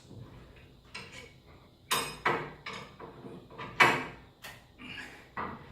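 Steel winding bars clanking and knocking against a garage door torsion spring's winding cone as the spring is wound up another turn: a series of sharp metallic clanks, the loudest about two and four seconds in.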